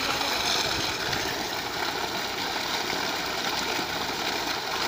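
Water from a submersible borewell pump gushing out of the discharge pipe and splashing onto the ground in a steady rush.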